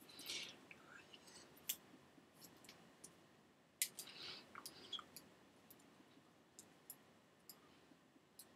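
Faint, scattered clicks and short soft rustles of hands rubbing and tapping together while signing, the sharpest click about four seconds in, over near-silent room tone.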